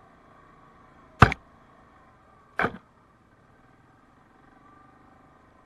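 Two sharp knocks about a second and a half apart, the loudest sounds here, over the faint steady hum of a 2017 Yamaha Kodiak 700 ATV's single-cylinder engine riding a rough dirt trail.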